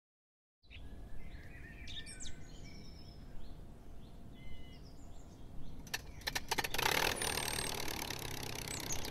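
Birds chirping with short high calls over a low background rumble. A few sharp clicks come about six seconds in, followed by a louder, steady hiss.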